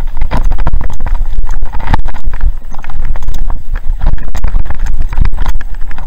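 Downhill mountain bike descending a rough dirt trail: a dense, irregular clatter of knocks and rattles as the bike runs over ruts and rocks, over a steady low rumble.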